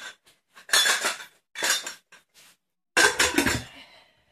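Stainless-steel pressure cooker lid being fitted onto the pot and closed: a series of metal clanks and clinks, the loudest about three seconds in, ringing briefly after.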